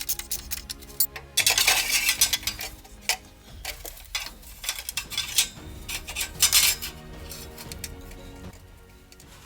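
Metal hand tools and car parts clinking and clattering during reassembly, with two longer spells of harsh, gritty noise, about a second and a half in and again around six seconds in.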